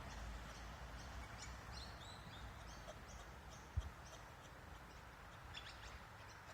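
A run of short, high chirps and whistled notes from birds over a steady outdoor hiss, with a single low thump almost four seconds in.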